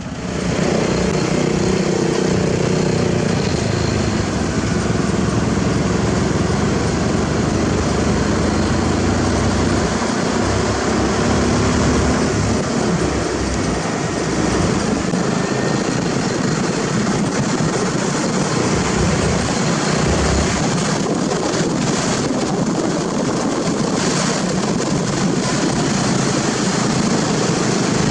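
Heavy road-construction machinery running close by: a loud, steady engine and mechanical noise that jumps up abruptly about half a second in and holds level throughout.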